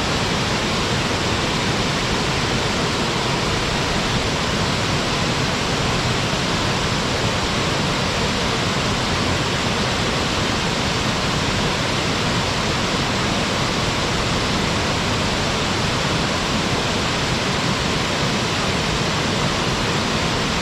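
Waterfall: water pouring steadily over rock and splashing into a pool, an even, unbroken rush.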